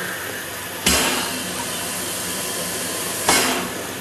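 Steam locomotive's open cylinder drain cocks hissing steam steadily, with two sudden louder blasts of steam, about a second in and near the end.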